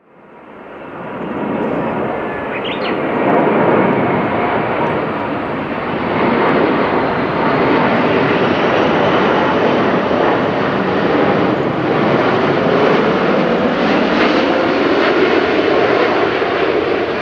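Airbus A380's four turbofan engines, Engine Alliance GP7200s, running at approach power as the airliner passes low overhead on final approach with its gear down. The loud, steady jet noise fades in over the first two seconds, and a low tone in it shifts in pitch during the second half.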